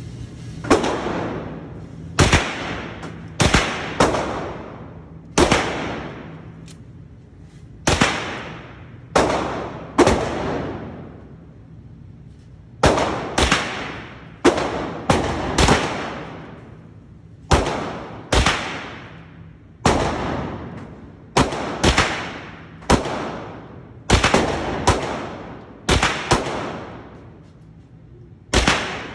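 Taurus G3C 9mm pistol firing about two dozen shots at an uneven pace, some single and some in quick pairs, each shot followed by a long echoing tail.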